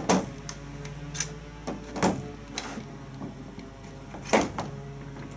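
Kayak cart's metal frame and wheel knocking and clanking against a plastic truck bedliner while the wheel is fitted onto the axle: several separate knocks, the loudest about four seconds in, over a faint steady low hum.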